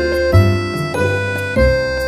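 Instrumental background music: held melody notes over a bass line, the notes changing about every half second.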